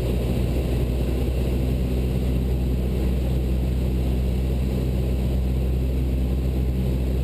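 Cessna 172 Skyhawk's piston engine and propeller running steadily, a constant drone heard inside the cabin.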